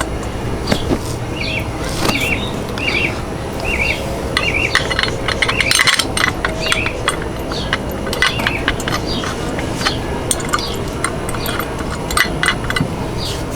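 A small bird chirping in quick repeated wavy notes, over light metallic clicks and clinks of tools and scooter parts being handled, with steady low background noise.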